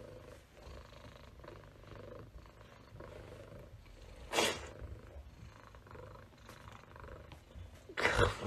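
Domestic cat purring steadily close up, with two brief louder noises, about four seconds in and near the end.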